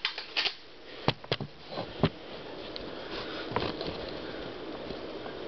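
Plastic clicks and knocks from a Nerf sniper blaster being handled: a handful in the first two seconds and one more about three and a half seconds in, over a steady hiss.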